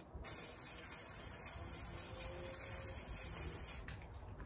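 Aerosol can of black stove-and-barbecue spray paint hissing in one long burst as it is sprayed onto a grill lid, cutting off near the end.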